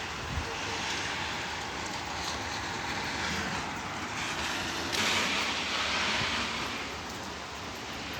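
Storm wind and rain: a steady rushing noise that swells louder about five seconds in, like a gust, then eases off near the end.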